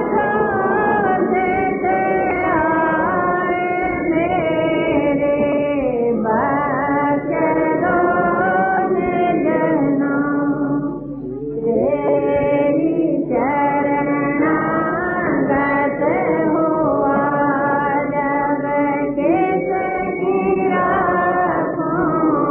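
Devotional hymn singing in long, drawn-out melodic phrases, with short breaks between phrases.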